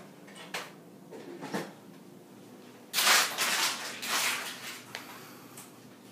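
A few light clicks, then two bursts of scraping and rustling handling noise about three and four seconds in, as things are moved about on a tabletop.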